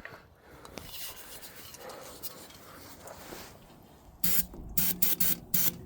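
Aerosol can of brake cleaner sprayed in about five short hissing bursts, starting a little past four seconds in, used as starting fluid to help a cold Lincoln SA-200 welder engine fire. Before that, only faint handling noise.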